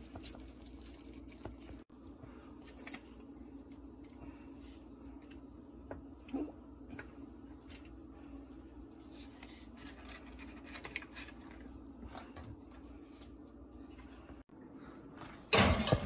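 Knife scraping and tapping faintly as butter is spread on split baked potatoes on a foil-lined baking tray, over a steady low kitchen hum. A sudden loud noise starts just before the end.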